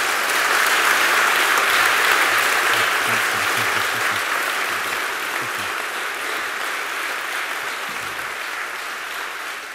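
Large audience applauding, loudest in the first few seconds and then slowly tapering off.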